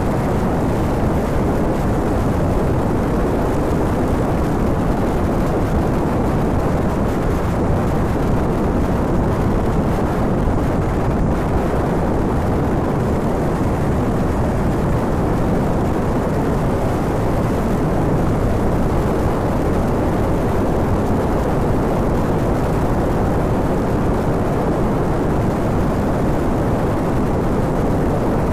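Honda VTR250 motorcycle riding at road speed, heard as a steady rush of wind and road noise on a handlebar-mounted phone microphone.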